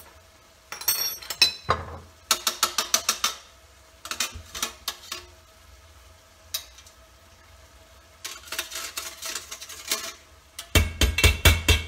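A metal spoon scraping and tapping against a metal box grater in quick strokes, clearing off grated fresh ginger. The strokes come in several short runs with pauses between them.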